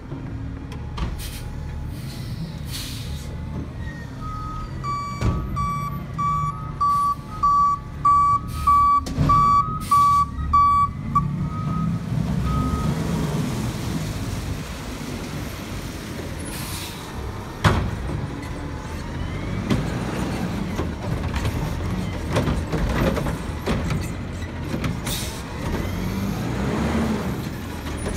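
Diesel garbage truck running, with its reversing alarm beeping steadily for several seconds about a quarter of the way in, then a sharp hiss of the air brakes about two-thirds of the way in as the engine pulls away.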